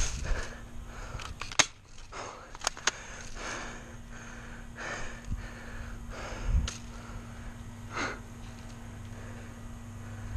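Airsoft gun shots as sharp snaps: one about a second and a half in, then two in quick succession near three seconds, with soft rustling of movement around them.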